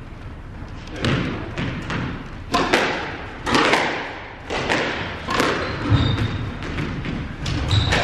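Squash rally: the ball struck by racquets and hitting the court walls, a string of sharp thuds about one or two a second, each with a short echo.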